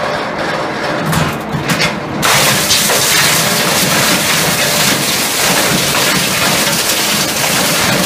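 32 by 24 inch hammer mill running with a steady hum and a few knocks, then about two seconds in a loud, continuous crashing and grinding begins as old electronics fed into its hopper are smashed up by the hammers.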